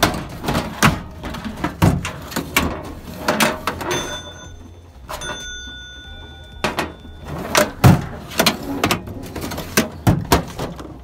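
Irregular knocks and clicks of hard plastic being handled close to the microphone, over a low steady hum, with a faint high steady whine for about three seconds in the middle.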